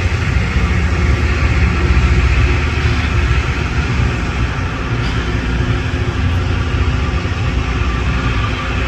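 LORAM rail grinder working the rail: its diesel engines running under a loud, steady grinding noise from the stones on the track.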